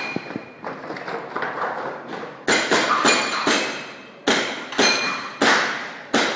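Airsoft pistol shots fired during a practical shooting stage: a string of about seven sharp cracks, mostly half a second to a second apart, several with a short metallic ring.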